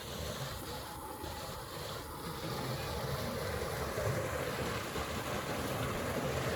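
A steady rushing noise, growing slightly louder toward the end.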